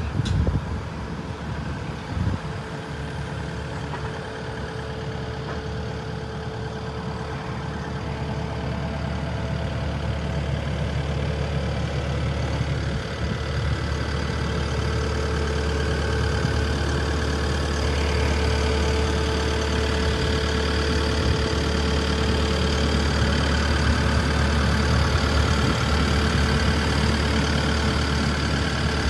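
Takeuchi TB290 excavator's diesel engine idling steadily, growing gradually louder toward the end, with a couple of light knocks near the start.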